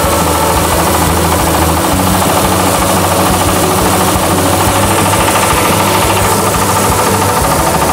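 MAKTANI husk-free rice milling machine running loudly and steadily under load, an engine-driven mill rattling as paddy is milled into white rice.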